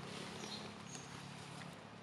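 Faint low hum of a distant motor, fading near the end, with scattered light clicks and taps over it.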